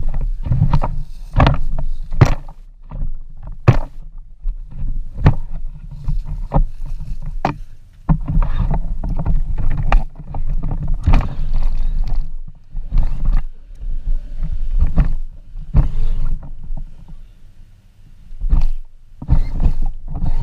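Battery-powered 12-volt ride-on toy four-wheeler driving over pavement: a low rumble and rattle with many sharp knocks as it jolts along. It goes quiet briefly near the end, then starts up again.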